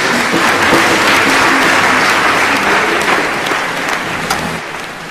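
Crowd applause, a dense steady clapping that fades down over the last second or so.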